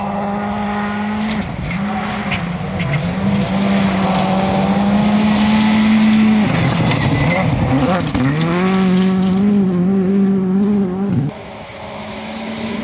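Rally car engine running hard at high revs, holding a steady pitch, with the pitch dipping and wavering briefly about seven seconds in before climbing back. The sound drops suddenly about eleven seconds in, then builds again.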